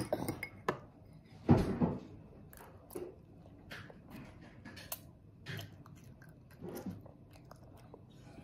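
A toddler eating spaghetti: a fork scraping and clicking against a bowl, with chewing and slurping up noodles. A louder knock comes about a second and a half in.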